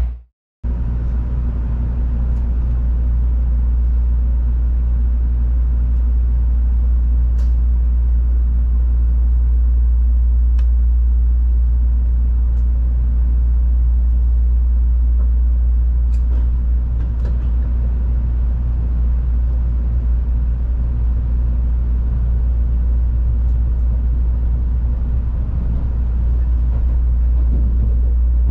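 Interior cabin noise of an N700-series Tokaido Shinkansen as it pulls out of the station: a steady, deep running rumble with a few faint clicks. It begins after a brief gap of silence about half a second in.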